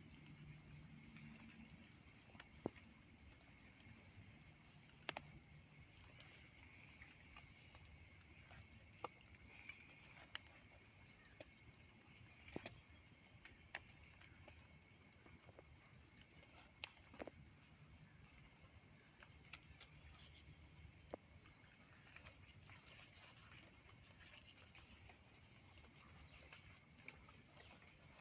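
Faint, steady high-pitched insect chorus, with a scattering of sharp isolated clicks.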